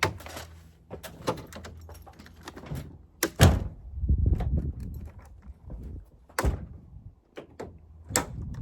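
Truck bed tent being unrolled and pulled out along a pickup bed: rustling with a string of knocks and thumps, the loudest about three and a half and six and a half seconds in.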